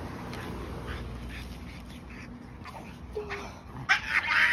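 A dog on a leash whimpering, with a brief pitched cry and then a louder burst of crying near the end.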